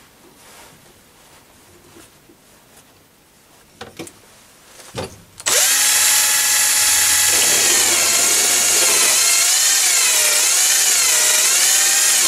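Cordless battery drill, mounted on the lathe's tool post, drilling a hole into an aluminium die holder: a loud motor whine starting about five seconds in, its pitch wavering as the bit cuts. Before it, two light knocks.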